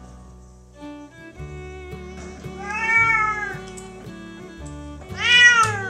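Tabby cat meowing twice, each call rising then falling in pitch, the second shorter and louder, over background music with guitar and fiddle.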